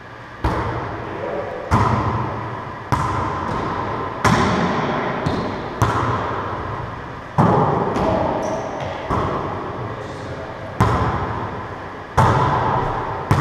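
A volleyball being struck by hands and bouncing off the walls of an enclosed racquetball court during a wallyball rally. About a dozen sharp slaps come roughly one every second or so, each echoing on in the hard-walled court.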